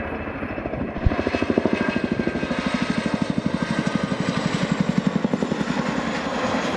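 Boeing CH-47 Chinook's twin tandem rotors beating in a fast, even blade slap as the helicopter flies past at speed, with a faint high turbine whine above. A single sharp thump about a second in, after which the beating comes on strongly.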